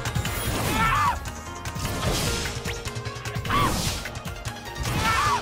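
Cartoon fight sound effects: crashes and hits, with three short swooping effects, over steady soundtrack music.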